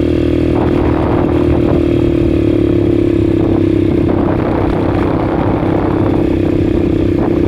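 ATV engine running at a steady speed during a ride, with some rattling.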